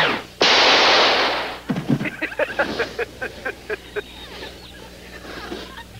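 Cartoon sci-fi battle sound effects. A loud blast about half a second in, then a rapid string of short electronic blaster zaps, each falling in pitch, about six a second, thinning out and fading.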